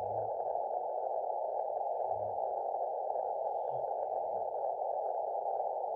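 Shortwave receiver audio of a CW (Morse code) signal arriving by long path through the aurora: a steady hiss-like band of sound held in the receiver's narrow CW passband, with an almost two-tone sound, the aurora smearing the tone so that the keying hardly stands out.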